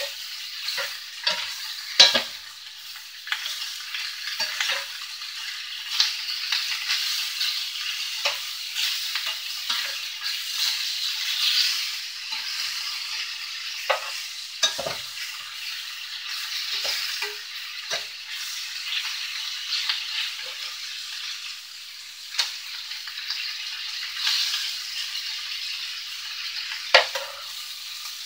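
Meat chunks sizzling as they brown in a cast-iron skillet, a steady high frying hiss. A spatula knocks and scrapes against the pan now and then as the pieces are turned.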